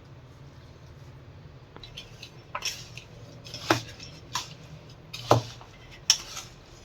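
A spoon knocking and scraping against the mixing vessel as warm jaggery syrup is stirred into the thick laddoo mixture. Irregular sharp knocks begin about two seconds in, roughly one a second.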